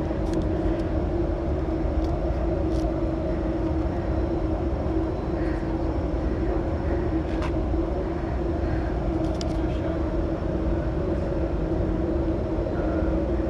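Natural gas compressor station running: a loud, steady machine drone with a deep rumble and a constant humming tone.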